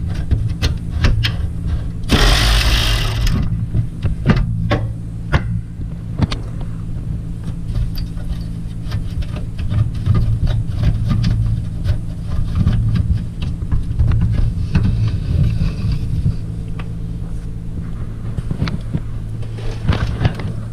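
A cordless ratchet runs in one burst of a little over a second, about two seconds in, backing out the last 10 mm bolt that holds the plastic-and-metal grille on. Then come scattered clicks, knocks and rattles of the grille being worked loose and handled, over a steady low hum.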